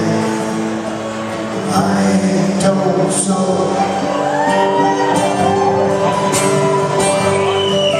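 Live acoustic country music: a strummed acoustic guitar and a picked mandolin play an instrumental passage between sung lines.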